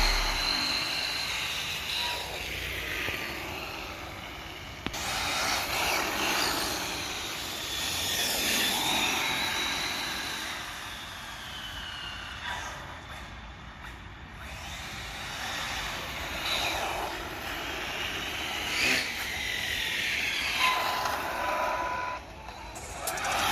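Radio-controlled cars' motors whining, pitch rising and falling over and over as the cars speed up and slow down, several at once.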